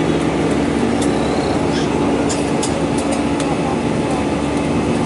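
Airliner's jet engines and airflow heard inside the passenger cabin beside the wing: a loud, steady rushing drone with a constant low hum, and a few faint clicks in the middle.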